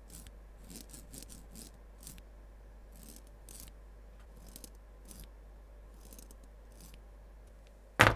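Faint small clicks and scrapes of a metal RC-car coilover shock absorber being handled and its rod end turned by hand, then a single sharp knock near the end as the shocks are set down on a wooden tabletop.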